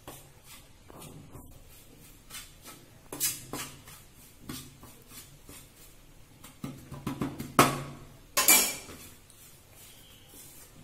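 Steel spoon scraping and clinking against a stainless-steel plate as a dry spice mixture is stirred, with two louder clinks about three-quarters of the way through.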